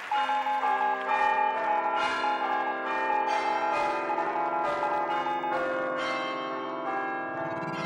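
Bells struck one after another, a new strike roughly every half second or so, their tones overlapping and ringing on. A rising electronic sweep comes in near the end.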